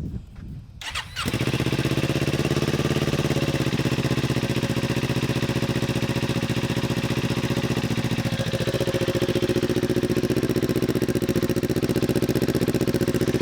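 Kawasaki Ninja 400 parallel-twin engine starting about a second in and then idling steadily through a Musarri GP slip-on exhaust with its silencer insert fitted. The idle note shifts slightly about halfway through.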